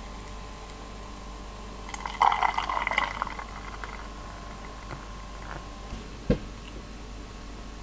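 Beer poured from a can into a glass: a splashing, fizzing pour about two seconds in that lasts over a second, then thins out. A single short thump follows about six seconds in.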